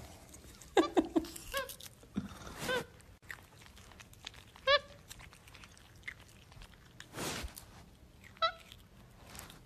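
Young capuchin monkey giving about six short, high squeaky chirps while it chews crackers and egg, with soft crunching and smacking between the calls.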